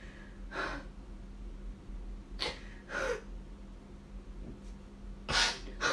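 A woman's short, sharp breaths and sniffs, about five of them spaced a second or two apart, the breathing of someone still worked up by an emotional outburst.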